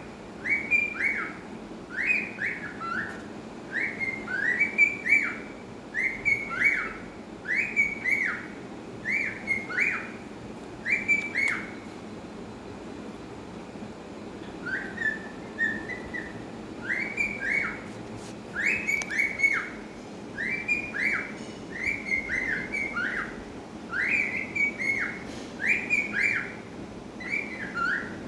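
Cockatiel whistling a newly learned phrase over and over, in quick swooping whistled notes. About halfway through it breaks off for a couple of seconds and gives a few softer notes, then takes the phrase up again.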